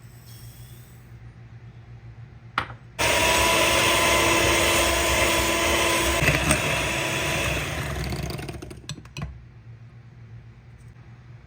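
Electric food mixer motor switched on about three seconds in and running at speed for about five seconds, then winding down and stopping with a few clicks.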